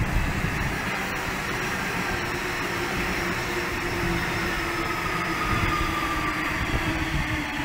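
Sydney Trains Waratah electric multiple unit running past on the line, a steady rumble of wheels on rail with a motor whine that slowly falls in pitch as the train moves away.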